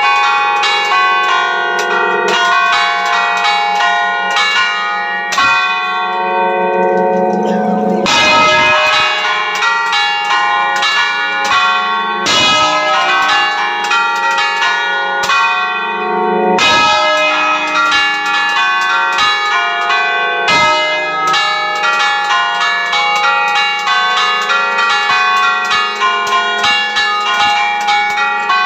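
Several church bells ringing close up in their belfry, struck in a fast, continuous run of overlapping strokes at different pitches.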